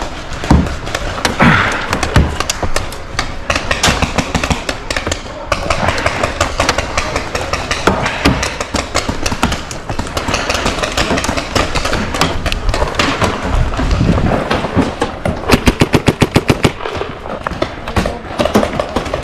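Paintball markers firing: scattered popping shots throughout, with a fast, evenly spaced string of shots near the end.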